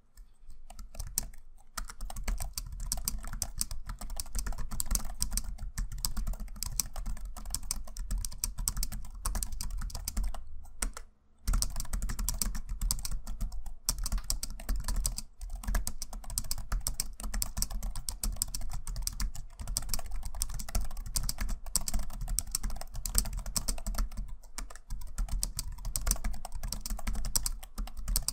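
Fast, continuous typing on a JellyComb KUS-015BS-3 slim low-profile wireless keyboard: a rapid run of key clicks with a soft low thud under each stroke, broken by a pause of about a second roughly ten seconds in.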